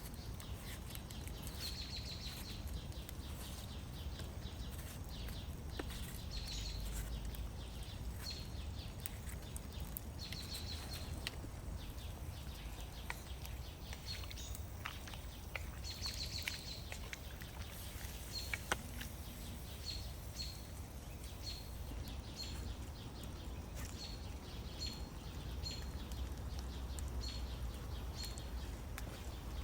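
A small bird calling with short, high chirps, repeated many times and coming in quick succession in the second half, over a low, steady background rumble with a few faint clicks.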